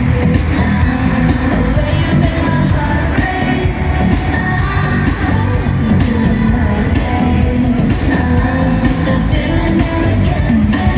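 Live K-pop song at concert volume, recorded from the audience: a loud, steady pop backing track with heavy bass and a woman singing the lead vocal.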